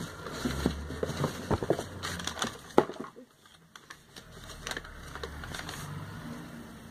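Plastic product packaging being handled, crinkling with a rapid run of small clicks and crackles for the first few seconds, then a brief lull and only a few scattered clicks.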